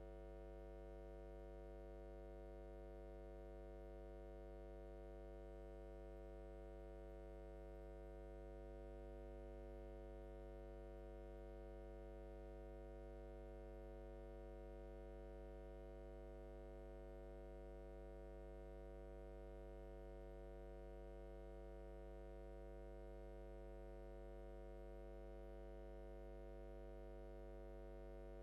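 Faint, steady electrical hum with a buzz of many overtones, unchanging: mains hum on the audio feed.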